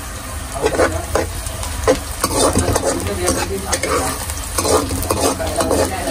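A steel ladle stirring and scraping masala frying in oil in a steel kadai, over a steady sizzle. The irregular scraping strokes start about half a second in.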